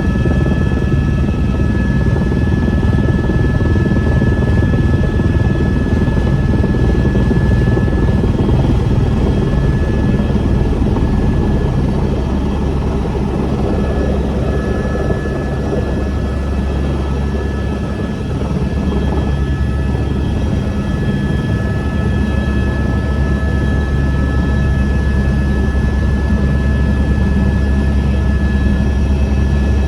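Helicopter running steadily: a heavy low rumble from rotor and engine, with a steady high whine over it.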